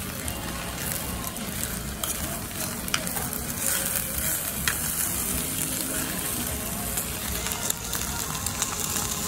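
Stone-pot bibimbap sizzling and crackling in its hot stone bowl as the rice and toppings are stirred with a metal spoon. There are a few sharp clicks as the spoon knocks the bowl.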